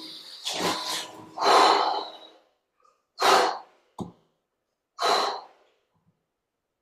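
A person breathing hard after a plank exercise, a series of five heavy, rushing breaths with short silences between them.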